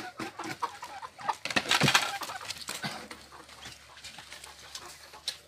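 Chickens clucking amid scattered knocks and clatter, with a louder rushing burst about two seconds in.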